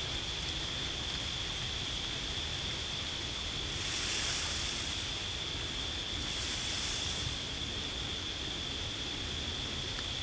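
A North American beaver moving among leafy branches in shallow pond water, making two brief rustling splashes, about four and about six and a half seconds in.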